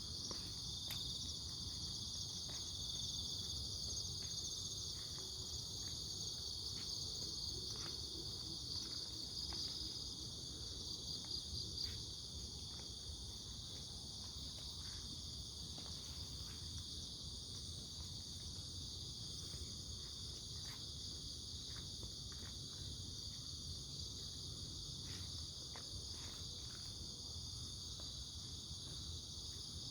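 Crickets trilling steadily in a high, continuous chorus over a low steady rushing background, easing slightly about twelve seconds in.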